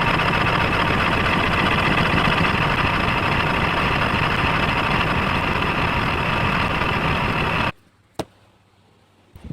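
A loud, steady engine-like noise that cuts off suddenly about eight seconds in, followed by a single click.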